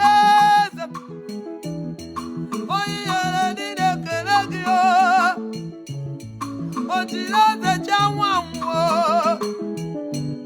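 Worship music: a melody of long held notes with vibrato over a stepping bass line, with short breaks between phrases.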